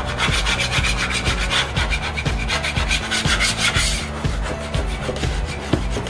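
Metal putty knife scraping dried lumps and protrusions off a plywood floor in quick, short strokes, levelling the floor so tiles laid on it will not lift. The strokes stop about four seconds in.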